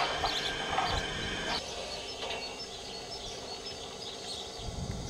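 Small birds chirping over steady outdoor background noise; the background thins out about a second and a half in.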